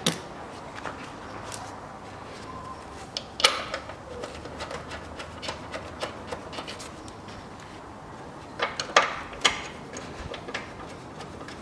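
Clicks and knocks of bolts and hand tools being handled as a new engine mount is bolted down, in three short clusters: at the start, about three and a half seconds in, and around nine seconds in, with a few faint ticks between.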